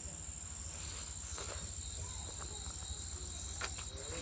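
Steady high-pitched trilling of crickets, with a short break near the end, over a low hum. A couple of faint clicks sound about a second and a half in and again near the end.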